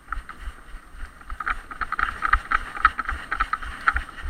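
Irregular thumps and knocks, several a second, over a rustling haze, with wind on the microphone.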